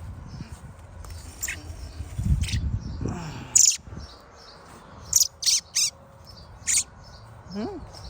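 Bird chirping: about seven short, high-pitched chirps spread across a few seconds, the loudest about three and a half seconds in, over a low rumble around two to three seconds in.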